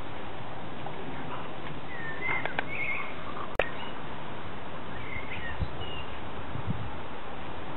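Small birds chirping in short scattered calls over a steady outdoor hiss, with one sharp click a little after three and a half seconds in.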